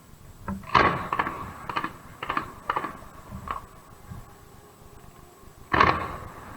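Fireworks shells bursting: a quick irregular run of sharp bangs with short ringing tails, then one loud bang near the end.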